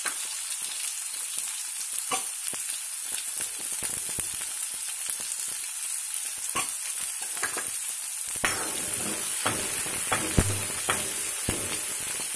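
Chopped onions sizzling in hot oil in a metal kadai, a steady frying hiss. From a little past the middle, a spatula stirring them, with sharp knocks and scrapes against the pan.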